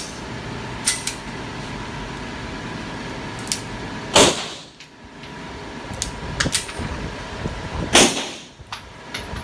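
Two loud gunshots echoing in an indoor shooting range, about four seconds apart, with a few sharp metallic clicks from a pistol being handled in between, over a steady air-conditioning hum.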